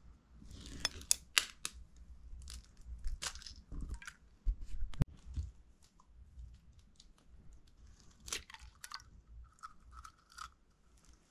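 Irregular handling noises of kitchen work: scattered clicks, scrapes and light clinks, with a sharp knock about five seconds in and a short ring of a struck object near the end.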